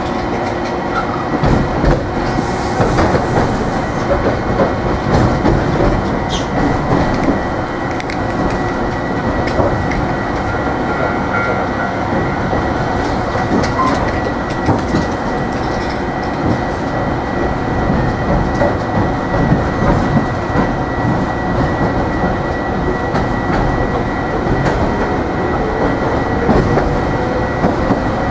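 Hiroshima Electric Railway 3700-series tram running, heard on board: a steady rumble of wheels on rail with irregular clicks and clatter, and a faint steady high tone. The resistance-controlled traction motors are barely audible, with a low tone rising near the end.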